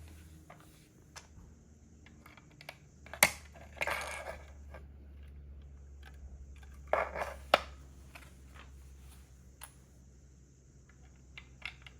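Plastic Lego pieces clicking and rattling as they are handled. A sharp click comes about three seconds in, then a short rattle, and two more clicks come around seven seconds in, with faint small taps between.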